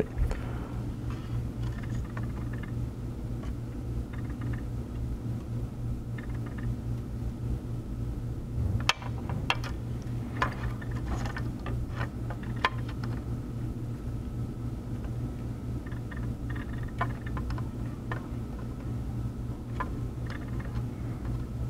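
Steady low electrical hum from the soldering bench equipment, with scattered light clicks and taps of metal tweezers and a soldering iron tip on a circuit board.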